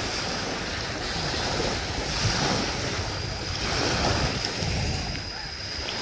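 Sea waves washing in and breaking along the shore, a steady rush that swells and ebbs every second or two.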